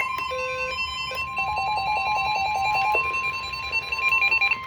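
NOAA Weather Radio warning alarm: a steady single tone of about 1050 Hz, held without a break. Rapid electronic beeping from alert receivers comes in quick runs over it, heralding an incoming severe thunderstorm warning.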